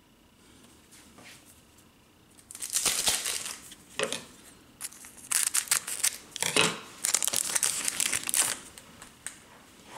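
Wrapper of a Tim Hortons Upper Deck hockey card pack crinkling and tearing as it is ripped open by hand, in a run of bursts starting about two and a half seconds in.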